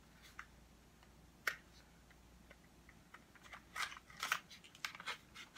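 Small scissors snipping through product packaging: a single sharp snip about a second and a half in, then a quick run of snips near the end.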